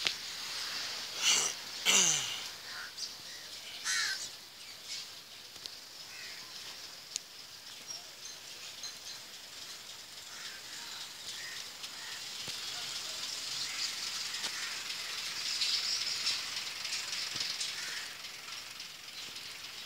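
Birds calling outdoors: a few loud, harsh calls in the first two seconds, then steady high-pitched chirping from many birds that grows a little louder toward the middle.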